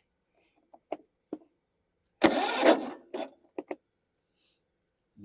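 Briggs & Stratton 19.5 hp engine on a John Deere lawn tractor cranked briefly by its starter, one loud attempt lasting under a second, with a few sharp clicks before and after. It is a hard no-start, which the owner puts down to an inoperative compression release.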